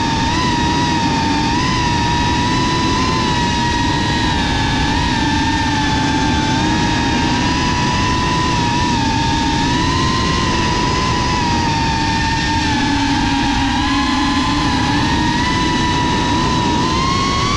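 GEPRC FPV quadcopter's brushless motors and propellers whining, heard from the GoPro on board, over a steady rush of prop wash and wind. The pitch wavers up and down with the throttle and climbs near the end.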